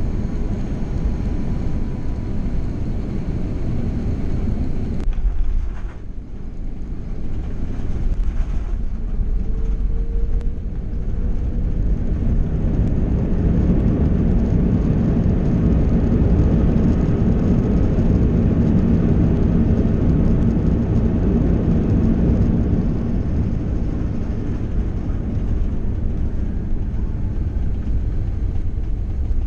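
Airbus A330-200 cabin noise during landing: a steady rumble of engines and airflow. About halfway through it swells to a louder, deeper rumble as the jet rolls out on the runway, then eases slightly.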